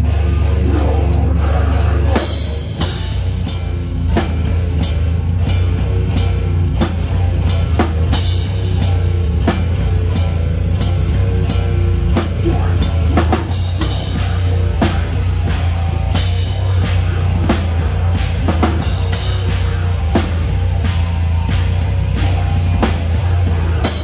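Live rock band playing loud, heard from right beside the drum kit, so the kick drum, snare and cymbals stand out over the rest of the band. The song stops abruptly on a final hit at the very end.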